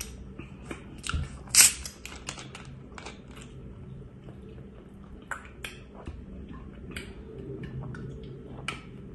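Plastic soda bottle's screw cap twisted open, with a short sharp hiss of escaping carbonation about a second and a half in, followed by small clicks of the bottle and quiet gulps as it is drunk from.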